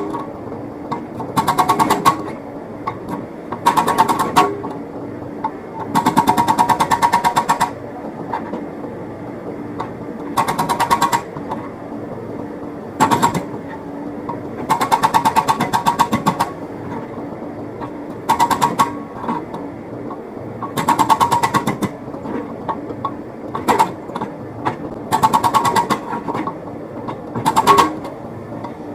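Hydraulic breaker on a Komatsu PC78US excavator hammering in about a dozen short bursts of rapid blows, each lasting half a second to a second and a half, with the excavator's diesel engine running steadily between them.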